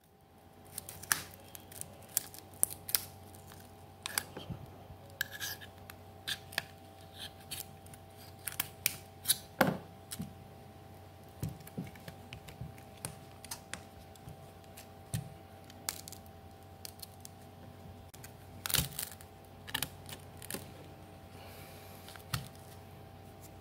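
Irregular light clicks and taps of small repair tools and plastic and metal parts while a smartphone is taken apart, over a faint steady hum.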